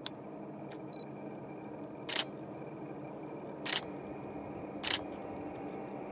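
Camera shutter clicking four times, a second or two apart, over a steady background hum.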